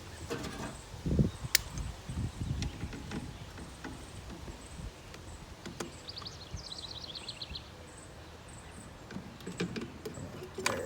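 Small clicks, knocks and rustles of hand tools and pliers working at a chainsaw's fuel line and filter, with a louder clatter near the end. About six seconds in, a short high trill of quick repeated notes, like a bird, comes in.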